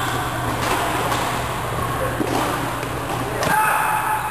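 Badminton hall during doubles play: a steady low hum under a few sharp knocks from racket strikes and footfalls on the court, and a brief, louder high-pitched squeal about three and a half seconds in.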